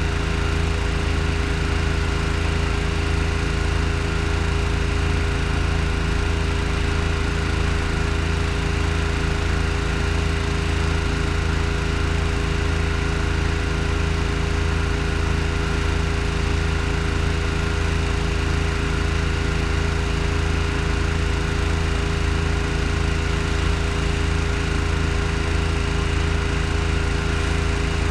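Pressure washer's gasoline engine running steadily at constant speed.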